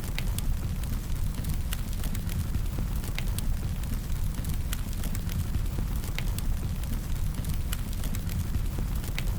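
Fire burning: a steady low rumble with sharp crackles and pops at irregular intervals, a few each second.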